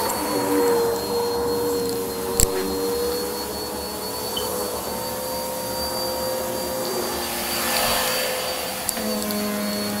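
Upright vacuum cleaner running over carpet, a steady motor whine with a hiss of suction. There is a sharp click about two and a half seconds in, a brief swell of hiss near the end, and then the motor note shifts.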